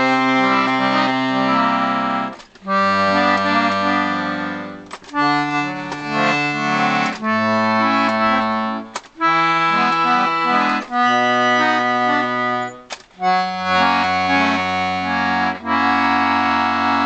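1930s Pancotti accordion's freshly tuned bass side being played: bass buttons sounding a low bass note with a chord above it, held about two seconds at a time, with brief breaks between as the notes and chords change.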